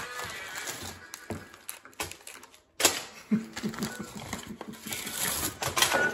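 Crinkling of a plastic candy bag with clicking and knocking handling noises close to the microphone, broken by a brief near-silent gap about two and a half seconds in.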